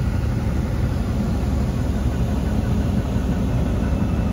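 Dodge Ram pickup's engine idling with a steady low rumble, heard from inside the cab, with the air conditioning blowing.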